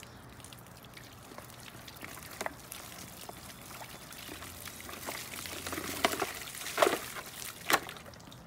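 Water pouring and splashing out of a plastic gallon jug as a knife slices it open, swelling in the second half, with a few sharp cracks of the plastic being cut, the loudest near the end.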